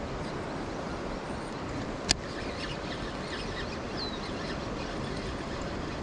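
Mountain river water rushing steadily. One sharp click comes about two seconds in, and faint bird chirps come near the middle.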